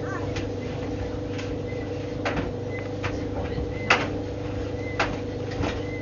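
White Knight tumble dryer running: a steady motor and drum hum, with irregular knocks about once a second as the load tumbles inside the drum.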